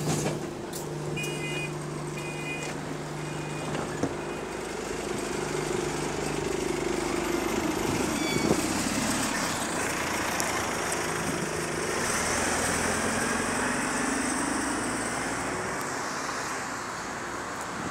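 Single-deck bus engine idling at a stop, with a run of short high warning beeps about a second in, typical of the doors closing. The bus then pulls away, its engine note rising and changing as it accelerates through the gears.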